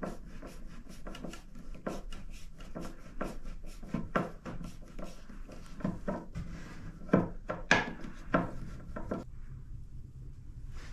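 Pine boards of a nightstand being handled: a run of wooden knocks, clicks and rubbing that stops about nine seconds in.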